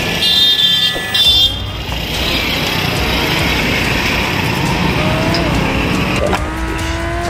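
Road traffic noise heard from a vehicle moving along a busy street: a steady rush of engines and tyres as a truck passes alongside. There are short high horn blasts in the first second and a half, and a steady lower tone sets in near the end.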